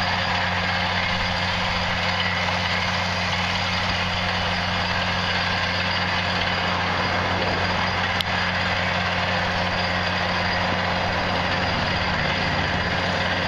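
Truck-mounted water well drilling rig running while it drills a well: a steady engine drone with a low hum that doesn't change. A single short click about eight seconds in.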